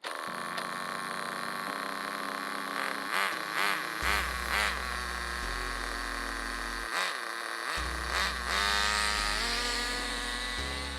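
Electronic background music with a bass line that steps from note to note and a few drum hits. About two-thirds of the way in, a rising buzzing whine comes in over it.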